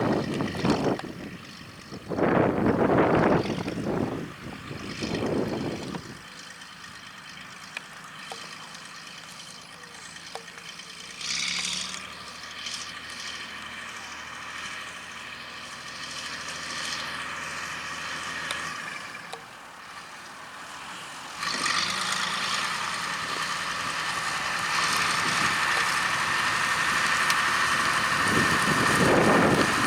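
John Deere tractor engine running steadily, coming in suddenly about two-thirds of the way through and growing louder toward the end. Wind buffets the microphone in low gusts over the first few seconds and again at the very end.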